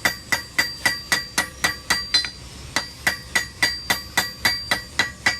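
Blacksmith's hammer striking hot iron on an anvil, about four blows a second with a short pause midway, each blow ringing; the bar is being drawn out to a point and forged into an octagon.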